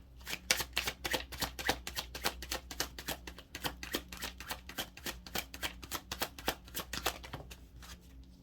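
A tarot deck being shuffled by hand: a rapid, uneven run of card clicks and flicks that tails off about a second before the end.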